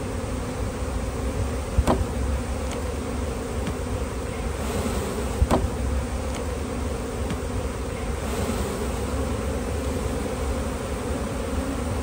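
Honey bees buzzing steadily in a dense mass over an open hive box as bees are brushed off the comb frames. A sharp knock comes about two seconds in and another about five and a half seconds in.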